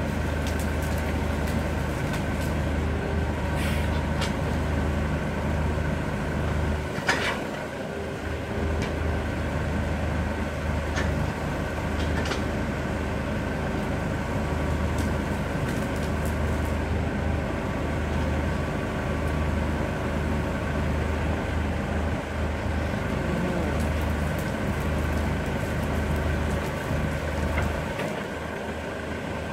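Steady drone of diesel machinery, a mini excavator and a wheeled machine, working at an old willow stump, with a few scattered sharp knocks, the loudest about seven seconds in.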